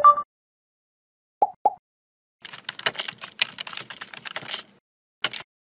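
Computer keyboard typing: a quick run of key clicks for about two seconds, then a single click near the end. It is preceded by a brief tone at the very start and two short pops.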